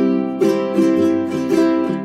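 Instrumental background music: a light plucked-string tune, a new note every half second or so.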